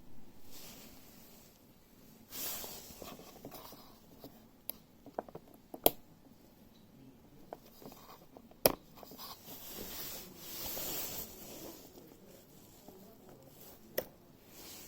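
Handling noises: soft rustling and scraping with several sharp clicks scattered through, two of them much louder than the rest.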